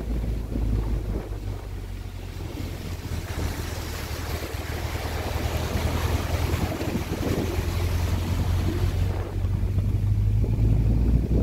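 A vehicle driving slowly on a gravel road, its engine a low steady hum. From about three seconds in to about nine, a hiss rises over it, the tyres running through floodwater covering the road.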